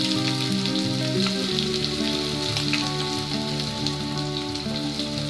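Freshly added chopped onions sizzling in hot oil over a mustard-seed tempering, a steady hiss, under background music.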